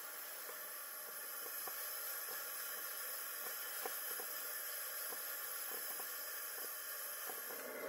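Coleman Dual Fuel liquid-fuel camp stove burner hissing steadily as it burns under a percolator coffee pot, with faint irregular ticks.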